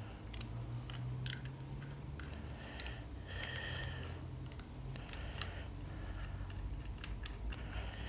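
Light metal clicks and a brief scrape a little past the middle as a nosepiece is screwed into a hand rivet gun and tightened with its wrench.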